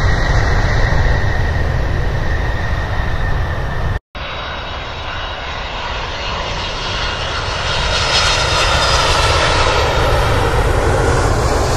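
Twin-engine jet airliners taking off at full thrust: a loud, steady jet noise with a whine in it. It cuts off abruptly about four seconds in, then a second jet's noise builds as it rolls and lifts off, loudest near the end.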